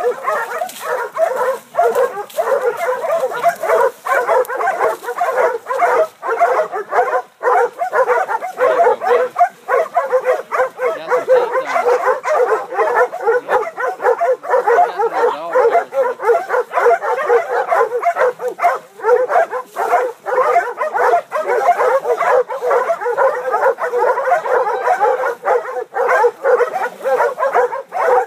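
A pack of hog-hunting dogs barking and yelping without pause, many barks overlapping, as they bay a hog.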